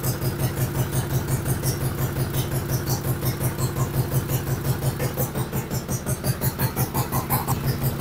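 Modified racing lawn mower's engine idling steadily, its sound pulsing evenly several times a second.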